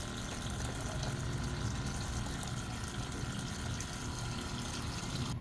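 Singflow bottom-load water dispenser's new pump running and water pouring from the dispenser into a container, a steady flow with a low hum; the flow cuts off suddenly near the end. The pump is drawing water from the bottle again, a sign that the pump repair worked.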